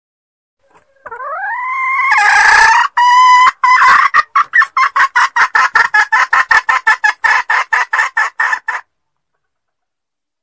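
Junglefowl hen (ayam hutan betina) calling: a drawn-out note rising in pitch, then a rapid run of sharp clucks at about five a second, stopping abruptly near the end. This is the hen call used as a lure (pemikat) to draw wild junglefowl.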